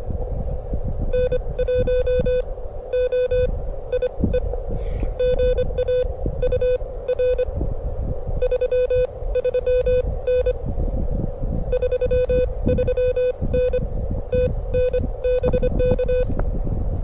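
Morse code (CW) from a ham radio: a single steady beep keyed on and off in quick dits and dahs, about 25 words per minute, over wind buffeting the microphone.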